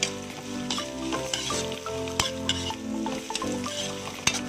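Aromatics sizzling in hot oil in a metal wok while a spatula stirs and scrapes them, with sharp clinks of the spatula on the pan near the start, about two seconds in and near the end.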